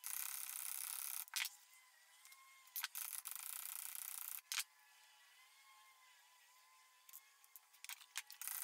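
A handful of sharp, light metallic taps a second or more apart, over a faint hiss: a hammer tapping a steel forge-welding canister packed with powdered steel and drill spirals.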